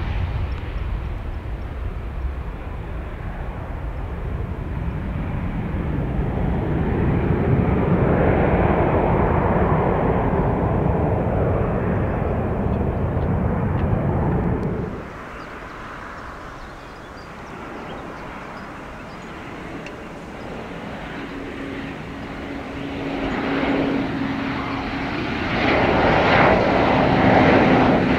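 Embraer E190 jet engines (GE CF34) running at take-off power, a loud, steady jet noise that cuts off abruptly about fifteen seconds in. A second E190 on landing approach follows, quieter at first and growing louder, with a steady engine whine near the end.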